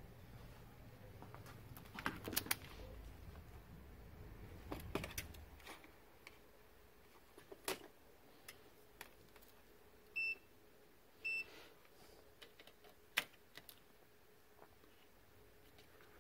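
Two short, high, steady beeps about a second apart from a Vici VC99 digital multimeter, among faint scattered clicks and taps of the test leads being handled.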